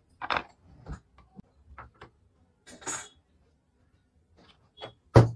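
A metal tool tapping and scraping against brass harmonium reeds in a wooden reed board, making scattered clicks and short scrapes, with a louder knock near the end.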